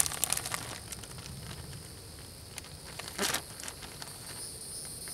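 Plastic zipper bag crinkling and clicking as fish fillets are put in and it is pressed shut, mostly in the first second, with one brief louder rustle about three seconds in. A steady high insect buzz runs underneath.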